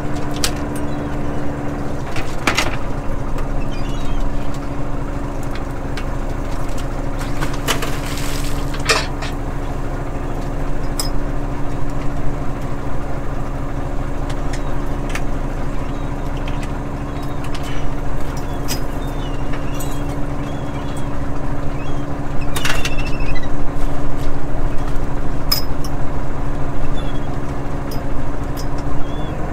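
Fishing boat's engine and hydraulic line hauler running with a steady low hum while halibut longline gear is hauled aboard, with scattered sharp clicks and knocks of gear. It grows a little louder near the end.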